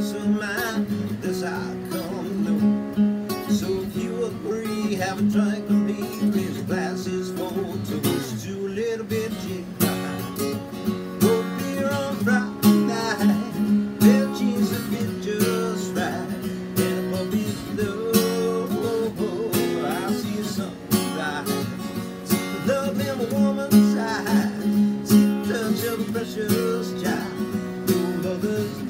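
Acoustic guitar strummed in a steady rhythm, chords ringing throughout.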